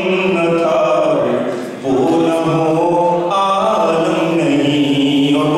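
A man's voice chanting a melodic recitation into a handheld microphone: long drawn-out notes that glide slowly in pitch, with a short break for breath near two seconds in.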